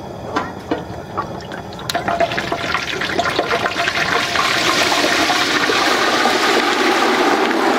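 Empty wire fry basket lowered into a turkey fryer's pot of hot oil: a couple of metal clinks, then a crackling sizzle that builds from about two seconds in and holds steady.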